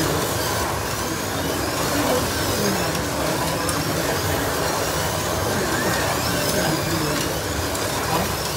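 Several 1/32-scale slot cars lapping a plastic track, their small electric motors whining and their wheels running in the slots. The buzz is steady, with a high whine that rises and falls as the cars speed up and slow down.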